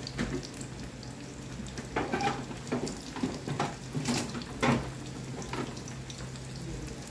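Butter melting in a hot nonstick frying pan over a gas flame, sizzling with a run of irregular pops and crackles from about two seconds in. A steady low hum runs underneath.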